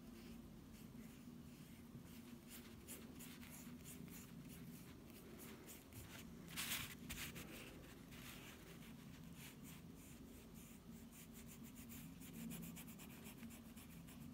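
Faint sound of a paintbrush working acrylic paint onto a wooden bird: many short strokes, with one louder stroke about seven seconds in.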